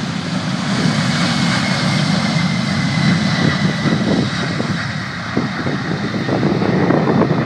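Jet engines of a UPS McDonnell Douglas MD-11 trijet at takeoff thrust as it rolls and lifts off: a loud, steady rush of jet noise with a faint high whine in the first half. Wind buffets the microphone in the last few seconds.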